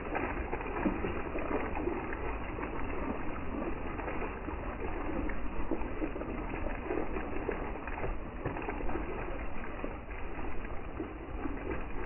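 Woodland ambience: a steady hiss under a bird's low calls, which repeat now and then throughout.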